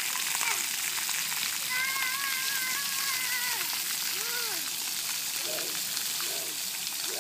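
Splash-pad fountain jets spraying water onto a wet concrete pad: a steady hiss of falling spray. A few short, high, wavering calls sound through the middle.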